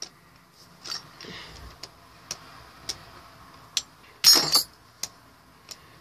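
Phantom Orion and L-Drago Beyblade tops knocking together as they spin against each other in a plastic stadium. Sharp clinks come about once a second, and a quick rattling flurry of hits about four seconds in is the loudest.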